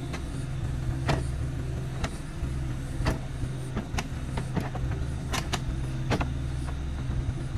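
Diesel engines of a two-axle công nông farm truck and an excavator running steadily, with a dozen or so irregular sharp clicks and knocks over the hum.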